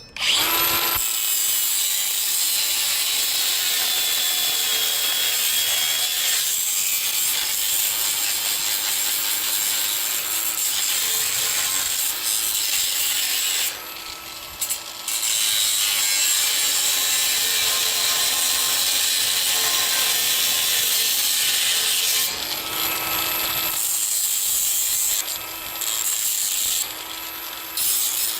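A power tool cutting, running almost without a break. Its motor tone sags and picks up again a few times, and the noise eases briefly about fourteen seconds in and twice near the end.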